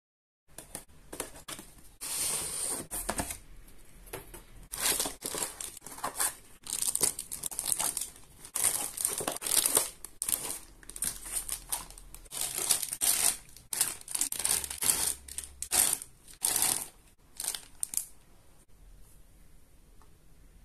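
Plastic bags around toy parts crinkling and being pulled and torn open, with the cardboard packaging handled, in irregular bursts of rustling that die away a couple of seconds before the end.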